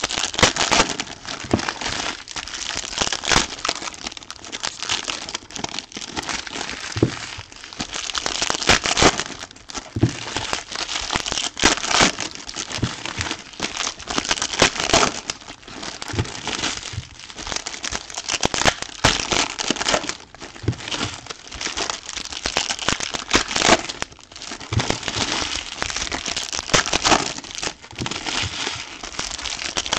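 Foil trading-card pack wrappers being torn open and crumpled by hand: a continuous, irregular crinkling full of sharp crackles.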